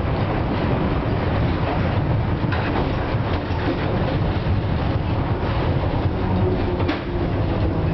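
FVV CSM-4 'Bengáli' articulated tram heard from inside the passenger cabin while running: a steady rumble of wheels on rails and running gear, with a sharp click or rattle about two and a half seconds in and another near the end.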